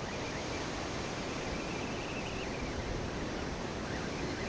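Ocean surf breaking and washing up the beach: a steady, even rush.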